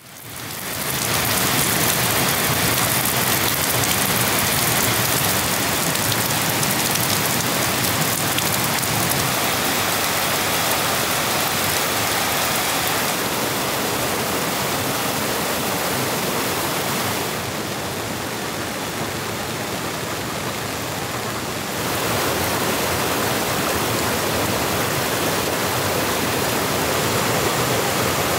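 Steady rain falling. It fades in over the first second and turns quieter and duller for a few seconds about two-thirds of the way through before coming back.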